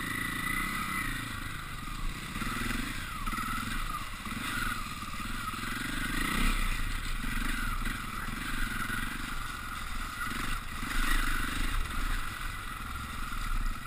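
KTM off-road motorcycle engine revving up and down as it rides, its pitch rising and falling every second or so.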